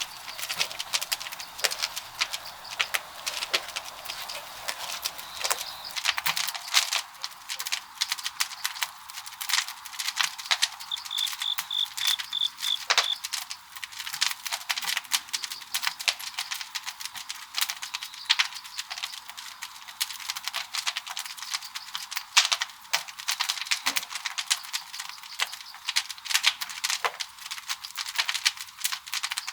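Wood fire crackling and popping in the firebox of a traditional Korean wood-fired kiln: a dense, irregular run of sharp crackles.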